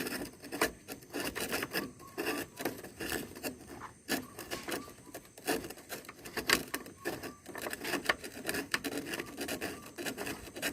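A bolt on a car door lock being worked loose with a hand tool: irregular metal clicks and scraping as the tool turns the bolt.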